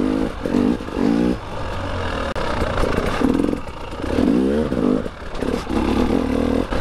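KTM EXC 300 TPI's single-cylinder two-stroke engine revving up and down in a string of short throttle bursts as the enduro bike is ridden over muddy, rutted ground.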